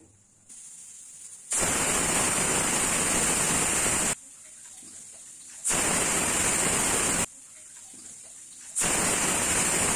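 Pressure cooker whistling three times: steam blasts out under the whistle weight in three long loud hisses, with a softer steady hiss of steam between them. Three whistles mark the chicken curry as fully pressure-cooked and the point to turn off the stove.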